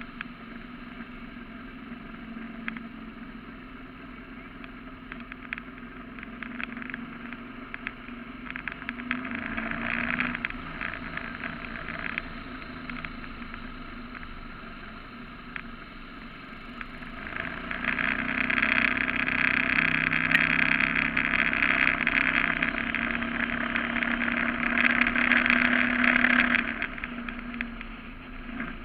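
Surface-drive mud motor pushing a flat-bottom boat at speed: a steady engine drone under a rush of water and spray. The rush swells briefly about ten seconds in, then comes back louder for about eight seconds before easing.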